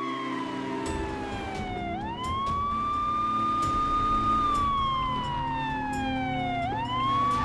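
Police siren wailing. Its pitch falls slowly over about two seconds, sweeps quickly back up, holds, then falls slowly again before a second quick rise near the end. A low rumble runs underneath.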